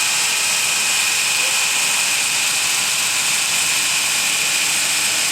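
Abrasive belt bevel grinder running: a steady, loud hiss with a constant high whine.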